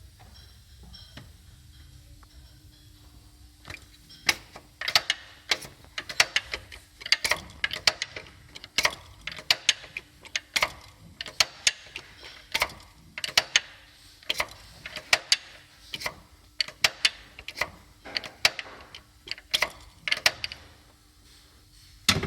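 Ford 3.5 EcoBoost twin-turbo V6 running with loud, irregular knocking from the cam phasers: sharp clicks several times a second, starting about four seconds in and stopping shortly before the end. The owner takes it for a phaser knock that calls for a new timing chain kit.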